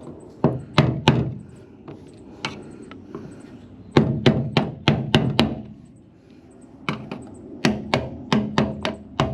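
Hammer tapping in short runs of sharp strikes, roughly a dozen in all with pauses between runs, knocking round the lock ring of a 1972 Chevy Nova's fuel gauge sending unit to free it from the gas tank.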